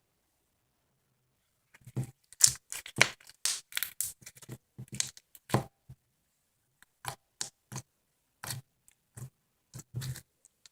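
Slime being squeezed and pulled apart by hand, starting about two seconds in: a quick run of short sharp sticky pops, packed close together at first, then spaced out.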